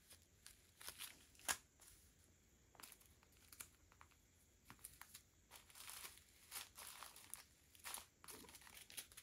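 Small plastic zip-lock bags of diamond-painting drills being handled and shuffled, giving faint scattered crinkles and clicks, busier a little past the middle.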